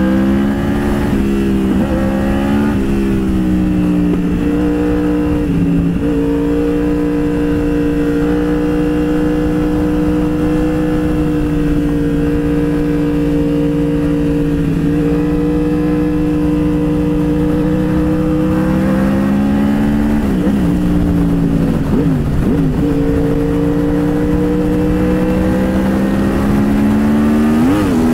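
Yamaha R1 inline-four sport-bike engine under way, heard from the rider's seat. Its pitch climbs and drops several times in the first few seconds as it shifts up through the gears, then holds a steady cruising note, wavers around twenty seconds in, and rises again near the end as it accelerates.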